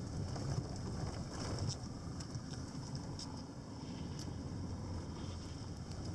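Steady low rumble of a van driving through shallow river water, heard from inside the cabin, with a few light clicks and rattles.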